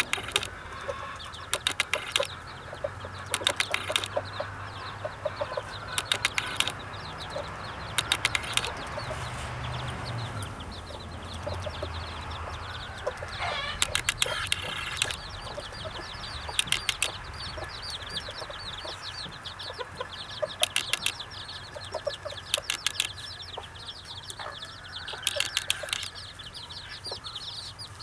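A brood of young chicks peeping constantly with high, falling cheeps, while the mother hen clucks in short, sharp runs about every two seconds.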